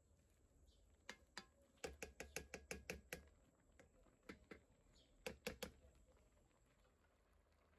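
Slotted spoon clicking against the sides of an enamelled frying pan while stirring a thick cream sauce: a couple of taps, then a quick run of about five clicks a second, then a few more.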